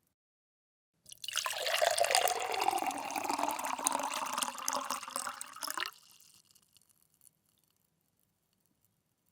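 Water poured in a steady stream into a glass for about five seconds, with a ringing note in the splash that slides down in pitch. It stops suddenly, followed by a few faint last drips.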